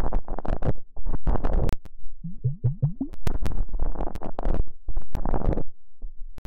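Close-miked ASMR sounds of hands working on a microphone: a quick run of four or five low, squelchy rising plops, with scratchy rubbing and a few sharp taps between them, the pattern repeating.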